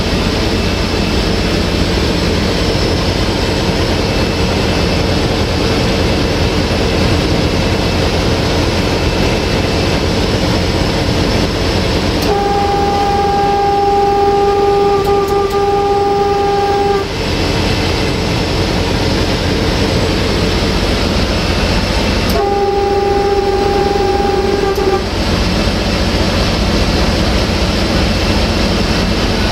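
Cab sound of a 060-DA (LDE2100) diesel-electric locomotive, its Sulzer diesel engine running steadily, while the locomotive's horn sounds twice: a long single-tone blast of about five seconds near the middle, then a shorter blast of about two and a half seconds some five seconds later.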